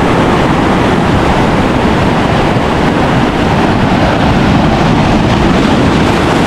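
Loud, steady rushing of sea surf against rocks, mixed with wind buffeting the microphone.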